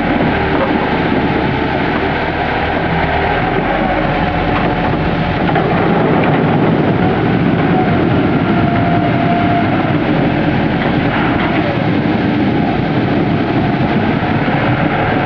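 Onions pouring out of a tipped 3-tonne wooden box into another box, a dense rumbling rattle that gets a little louder about five seconds in as the stream builds. Under it a forklift engine runs and its hydraulics whine as the box rotator turns the box.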